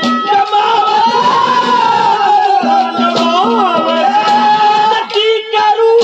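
A male ragni singer holds one long, high sung note that wavers and bends into a quick up-and-down turn about three seconds in, over a steady accompanying drone.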